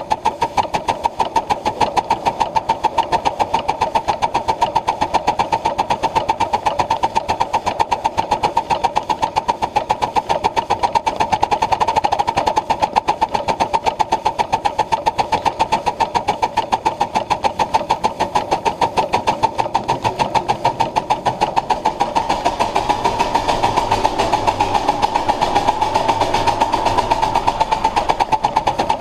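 Ridable live-steam Pacific (4-6-2) locomotive working steadily, its exhaust and running gear making a rapid, even beat. A deeper rumble joins about two thirds of the way through and grows louder near the end.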